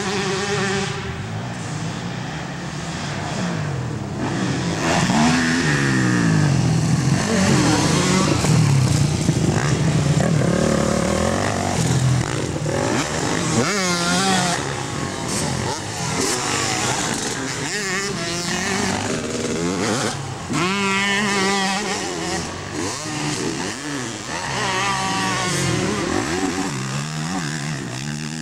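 Motocross dirt bikes racing, their engines revving up and down over and over as riders accelerate and back off, with several bikes heard at once.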